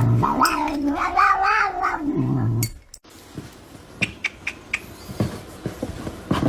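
A cat yowling in one long drawn-out call that rises and then falls in pitch, which breaks off abruptly about three seconds in. Quieter scattered taps and clicks follow.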